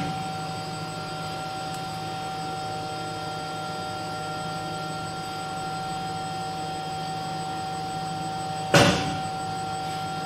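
AT225 lab melt spinning machine's winding unit running, the traversing wheel moving back and forth as the filament winds onto the paper tube: a steady electric hum with several constant tones. One sharp knock sounds near the end.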